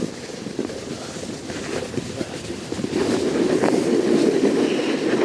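Snowboard scraping and chattering over rough, choppy snow, a dense rumbling rattle that grows louder about three seconds in.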